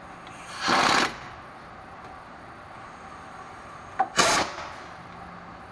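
Impact wrench run in two short bursts about three seconds apart, tightening bolts during reassembly of the truck's front brakes.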